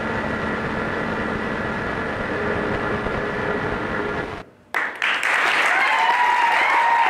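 A low rumbling sound track ends abruptly about four and a half seconds in; after a brief silence an audience breaks into applause and cheering.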